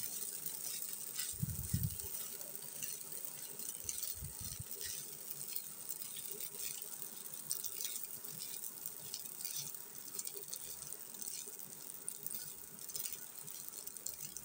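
Wooden spatula stirring pasta in a nonstick pan: faint scrapes and light clicks against the pan, with two soft low thumps in the first few seconds, over a steady faint hiss.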